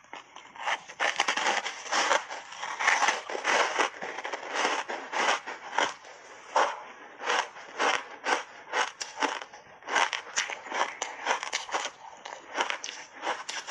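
Chewing a mouthful of frozen purple block ice coated in milk powder, close to the microphone: dense crunching for the first few seconds, then a steady series of crunches about two a second.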